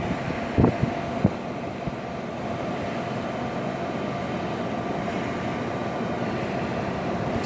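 A 1981 Emerson Quiet Kool 18,000 BTU window air conditioner running, compressor and fan on, as a steady hum, with two short thumps in the first second and a half.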